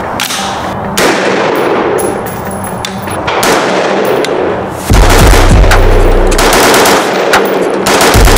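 Shots from a Springfield Armory SAINT Edge ATC semi-automatic rifle, heard as sharp cracks. About five seconds in, a heavy deep bass from an edited-in music or effects track comes in and continues under the shots.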